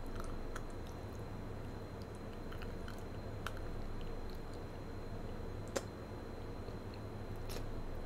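Close-miked wet mouth sounds of a chocolate-coated marshmallow bear being moved around the mouth and chewed: soft smacks and clicks of lips and tongue, one sharper click about six seconds in, over a steady low background hum.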